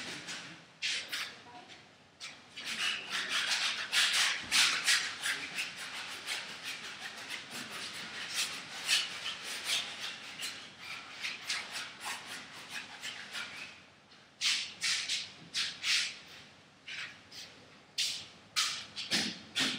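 Paintbrush strokes scrubbing across a large stretched canvas. It is a dense run of short, hissing rubs with brief pauses between them.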